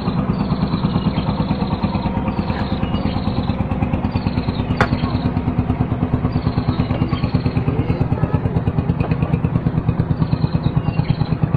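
Engine running steadily with a fast, even low pulse, and one sharp click about five seconds in.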